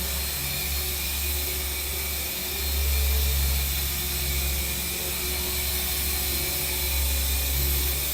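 V77 radio-controlled electric helicopter flying: a steady whir of the motor and rotor with a low rumble that swells about two and a half seconds in and again near the end.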